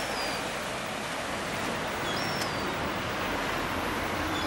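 Steady wash of small sea waves breaking on a sandy shore, mixed with wind, with a few faint short high chirps.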